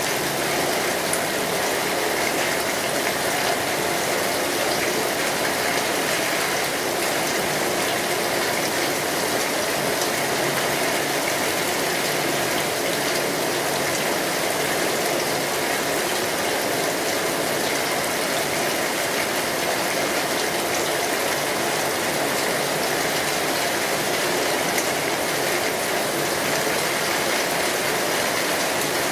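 Steady rain falling on a street: an even hiss of rain with scattered drops ticking, unchanging throughout.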